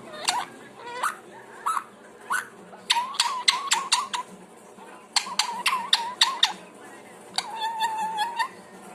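Pet parrot vocalising: a few short upward-sliding whistles, then two runs of rapid sharp clicks over a steady whistled note, and a longer held whistle near the end.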